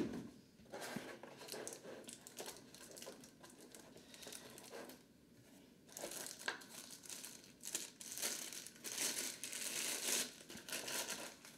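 Clear plastic wrapping crinkling and rustling as a wireless flash trigger is pulled from its foam tray and unwrapped by hand. The rustling is irregular, gets louder and busier about halfway through, and opens with a sharp click.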